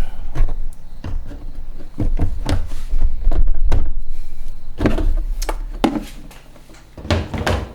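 Irregular clunks and knocks of parts being handled and worked loose in an engine bay, as the supercharger's induction pot is being removed, over a low rumble.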